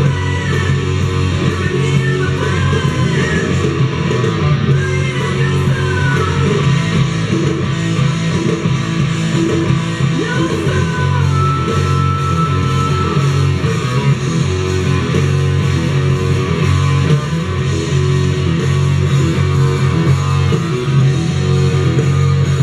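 Guitar-driven rock music with bass, playing loud and steady from a vinyl record on a turntable.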